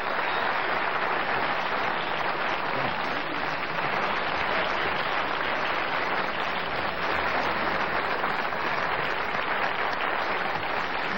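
Studio audience applauding steadily, with the people on stage clapping along.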